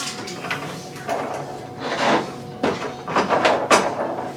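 Refrigerator drawers and contents being handled: a run of sliding scrapes and sharp knocks, about five in all, the busiest near the end.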